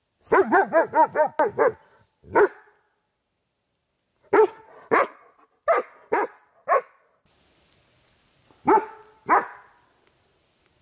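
A dog barking repeatedly: a fast run of about seven barks, then single barks and short runs of two to five with pauses between.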